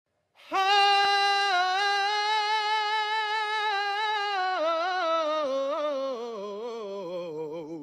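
A man singing a cappella: one long high note held steady, then a wavering run that steps down in pitch.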